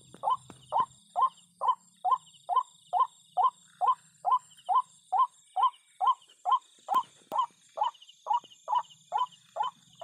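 A rail's call: a short, sharp note that slides downward, repeated steadily about twice a second.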